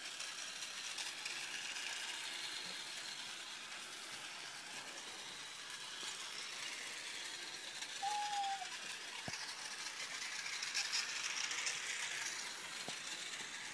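Battery-powered toy train running round a small circular track, its little motor and wheels making a steady fast rattle. A short squeak sounds about eight seconds in.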